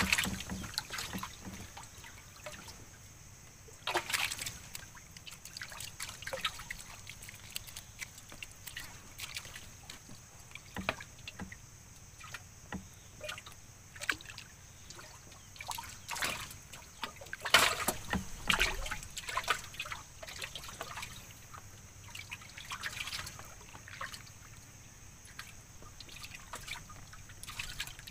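Water trickling and sloshing as a hand paddle dips and strokes beside a small wooden boat, in scattered splashes a few seconds apart, over a steady high hiss.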